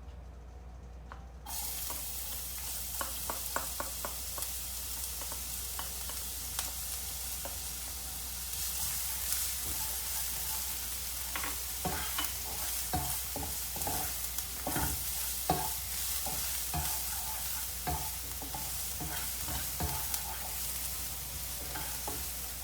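Finely chopped garlic and shallots sizzling in hot oil, the sizzle starting suddenly about a second and a half in. A spatula stirring them in the pan makes many short knocks and scrapes through the sizzle.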